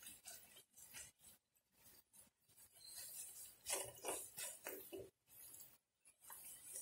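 Silicone spatula stirring and scraping semolina through thick jaggery syrup in a nonstick pan: faint, irregular scraping and rustling strokes, loudest a few seconds in.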